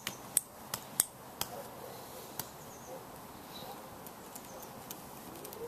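Scattered sharp clicks and taps: several in the first two and a half seconds, then fainter ones, over a low steady hiss.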